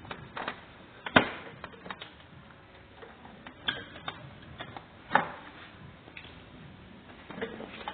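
Irregular clicks and knocks of tools and parts being handled while a mobility scooter is taken apart, the sharpest knocks about a second in and about five seconds in.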